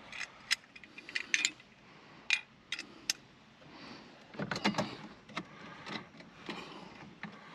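Irregular sharp clicks and light rattles of small hard parts being handled: a plastic in-dash phone mount and a metal driver tool knocking together and against the opened dash, with a denser run of clicks about halfway through.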